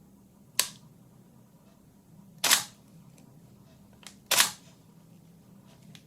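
Canon 5D Mark III shutter and mirror firing: a short sharp click about half a second in, then two full shutter actuations about two seconds apart.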